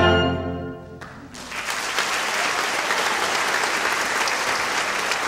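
The clarinet and wind ensemble's final held chord dies away about a second in, then the audience breaks into steady applause.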